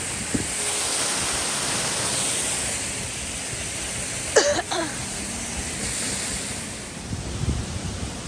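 Waterfall's rushing water, a steady even hiss, with a short high call from a voice about four and a half seconds in.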